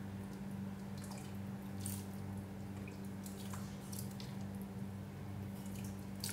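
Hot chicken broth being ladled into a bowl: scattered small drips and splashes over a steady low hum.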